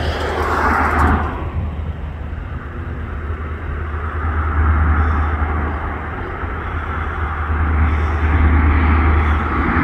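Lockheed P-3 Orion's four Allison T56 turboprop engines and propellers giving a steady low drone on approach, slowly growing louder as the aircraft comes closer, with a brief swell of rushing noise about a second in.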